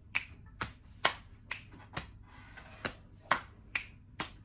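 Body percussion: finger snaps and other hand strokes keep a steady beat of about two strokes a second, some accented louder than others.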